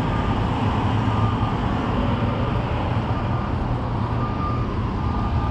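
Steady road traffic noise with the low hum of a nearby engine running, and a faint high beep recurring now and then.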